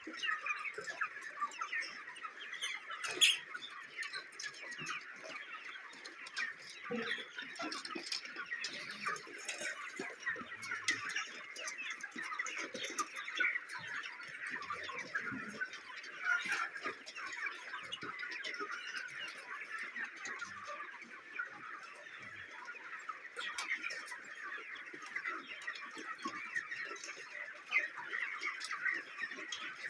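A large flock of white broiler chickens calling: a dense, steady chatter of many overlapping high peeps and clucks. One sharp click stands out about three seconds in.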